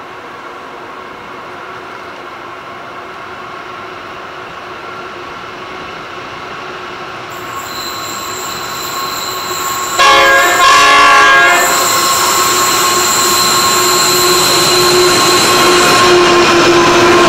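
Pacific National NR-class diesel-electric locomotives approaching, growing steadily louder. About ten seconds in they sound a multi-note horn for nearly two seconds, the loudest moment. A high steady squeal has joined shortly before, and the locomotives are running close by near the end.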